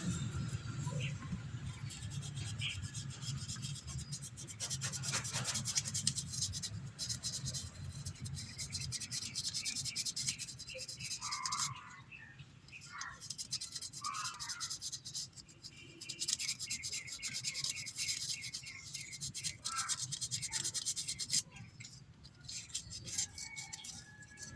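Sandpaper rubbing rapidly back and forth on a battery terminal, scraping off corrosion to clean the contact of a dead no-start electrical fault, with a couple of short pauses.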